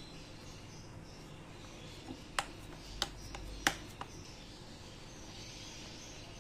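Faint rubbing of ghee-rich wheat flour dough being pressed and shaped between the hands over a glass bowl, with three sharp clicks a little over half a second apart, about two and a half seconds in.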